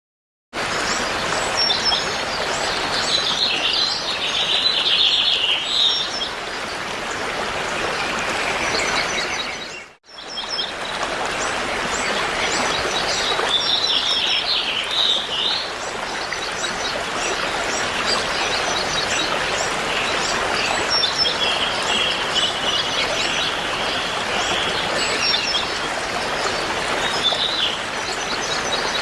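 Birds chirping and trilling over a steady rushing background, like an outdoor nature ambience. The sound cuts out briefly about ten seconds in, then carries on.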